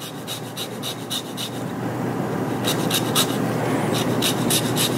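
A lemon being zested on a long stainless rasp-style zester, in quick runs of short scraping strokes, about five a second, with a short pause about two seconds in. A steady rushing noise underneath grows louder.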